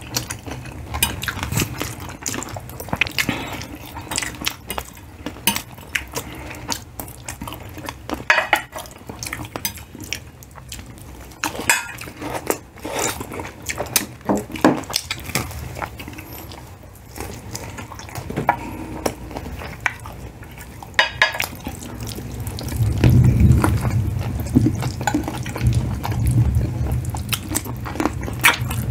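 Eating at a table: forks clinking on plates in scattered short clicks, with wet chewing and mouth sounds of spaghetti and fried chicken being eaten. A louder low rumble joins in during the last few seconds.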